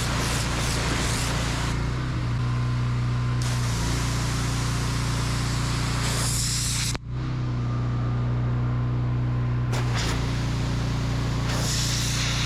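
A 3650 PSI pressure washer running steadily, with the hiss of its water jet from a handheld trigger gun with a quad-jet nozzle spraying a pumpkin at close range. The spray stops and starts as the trigger is released and squeezed, and the machine's hum changes pitch with it. Everything cuts out for a moment about seven seconds in.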